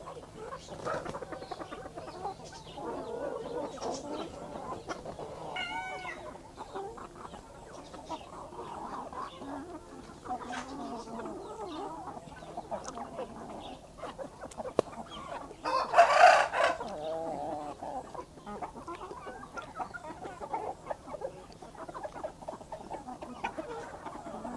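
A flock of backyard chickens clucking continuously as they forage, with one loud, brief call from one bird about sixteen seconds in.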